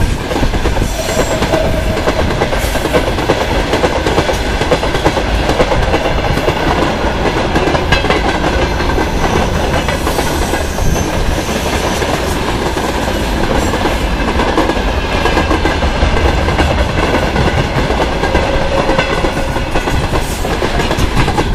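Freight train wagons (covered hoppers, tank cars and boxcars) rolling past close by: a loud, steady rumble with the wheels clattering over the rail joints.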